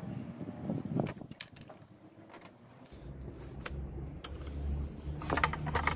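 Metal clicks and clinks of a 12 mm wrench working the nuts of a Toyota Hilux's viscous fan clutch as they are undone, with a cluster of clicks near the end. A low steady hum starts about halfway through.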